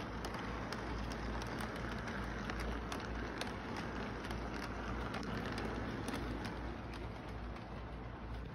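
Model train freight cars rolling along the track, wheels running with a steady rumble and frequent irregular clicks, over a steady low hum. The clicks thin out near the end as the train moves off.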